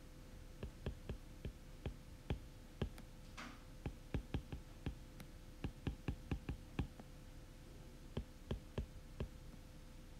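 Stylus tip tapping and clicking on a tablet's glass screen while handwriting, an irregular run of sharp light clicks, several a second, with a brief hiss about three seconds in.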